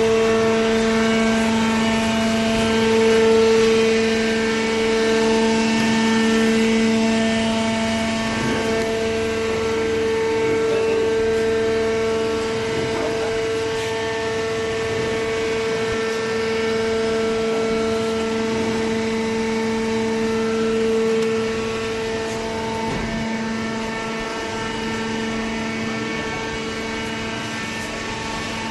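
Hydraulic baler's electric motor and pump running with a steady, pitched hum.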